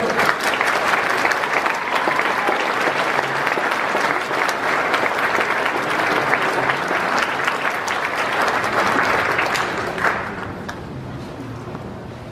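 Audience applauding, dense and steady, then dying away about ten seconds in.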